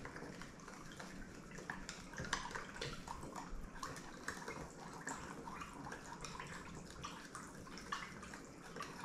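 Stir-fry sauce of chicken broth and corn starch being stirred, liquid sloshing with many small irregular clicks of the utensil against the container.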